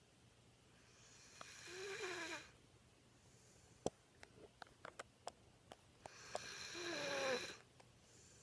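Boxer–German Pointer mix dog snoring in her sleep: two long snores about five seconds apart, each growing louder before cutting off, with a quick run of small clicks between them.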